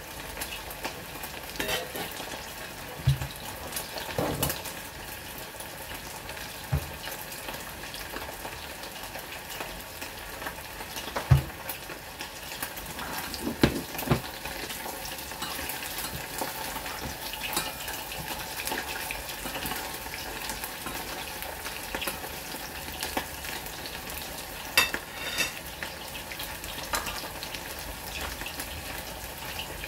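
Pork ribs deep-frying in a small stainless-steel saucepan of oil, a steady sizzle, with a few short sharp knocks scattered through it.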